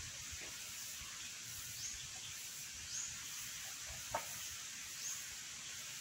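Steady high outdoor hiss with a faint short rising chirp repeating about once a second, and a single sharp click about four seconds in.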